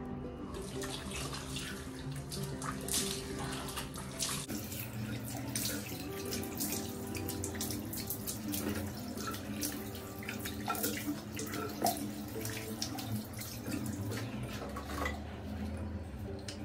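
Tap running into a bathroom sink, with repeated splashes as water is scooped up in the hands to rinse face-wash foam off the face.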